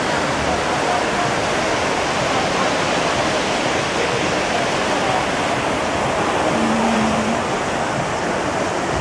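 Steady rushing noise of wind and the cruise ship's churning wake.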